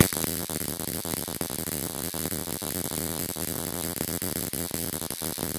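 Ruhmkorff induction coil sparking continuously across the gap between two brass balls: a steady, harsh crackling buzz of rapid-fire discharges that starts suddenly.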